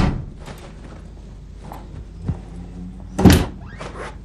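A door shutting with a heavy thud, a small knock about two seconds later, then a second, louder door thud about three seconds in.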